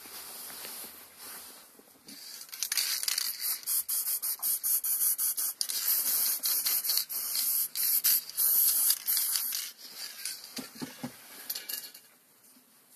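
Steel sleeve scraping and rubbing against a Massey Ferguson Multi Power input shaft as it is worked down over it. It makes a harsh, fluttering hiss that starts about two seconds in and dies away towards the end.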